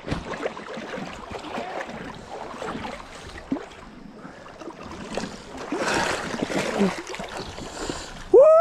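Shallow river water rushing around a wading angler, with close rustling and handling noise as a hooked king salmon is played on a bent fly rod; the noise swells for about a second around six seconds in. Near the end a man gives a long, loud shout.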